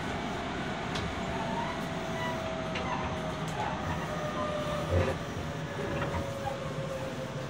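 Running sound inside a Tobu 20050-series electric train: steady rumble of wheels on rail, with the VVVF inverter and traction motor whine falling slowly in pitch as the train slows on its approach to a station. A single thump comes about five seconds in.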